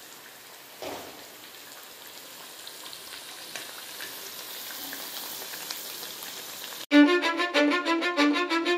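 Corn vadas deep-frying in hot oil in a kadai: a steady sizzle that slowly grows louder. Near the end it cuts abruptly to louder music with a quick, steady beat.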